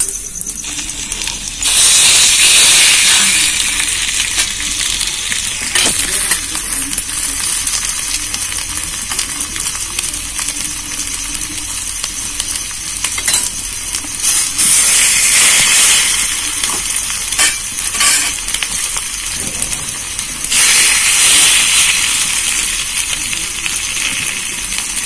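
Egg-batter-coated bread slices sizzling in hot oil on a flat tawa. The sizzle swells three times as each new slice is laid down, with a few light utensil clicks in between.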